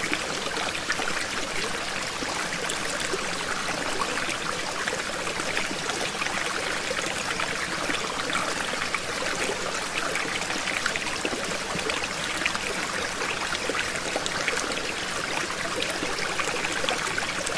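Small waterfall with water spilling and splashing steadily, a soft even rush with fine trickling splashes.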